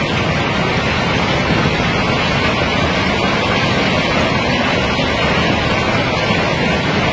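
A mass of rounded river stones sliding and rattling down a sloped concrete chute in a steady, unbroken rumble.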